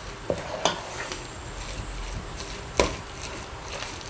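Plastic spatula stirring a thick ground-chicken filling in a stainless steel pot, working in tapioca starch: soft wet scraping with a few sharp knocks of the spatula against the pot, the loudest about three seconds in.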